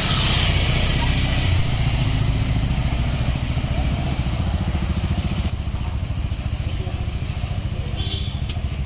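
Road traffic: motorcycles and scooters running and passing close by, a steady engine rumble that eases off in the second half.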